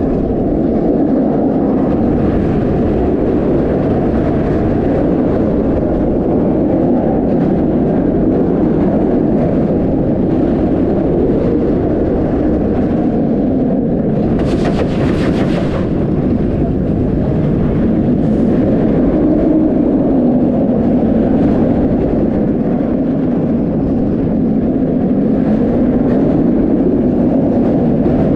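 Kumba, a B&M sit-down steel roller coaster, with its train running at speed along the track in a steady roar. There is a brief hiss about halfway through.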